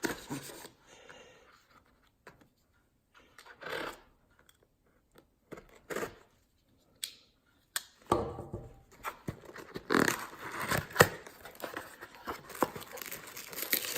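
A cardboard shipping box being cut open with a Civivi Backlash folding knife. There are scattered scrapes and taps at first, then from about eight seconds in a steady run of rustling, tearing and sharp clicks as the box and its packing are opened.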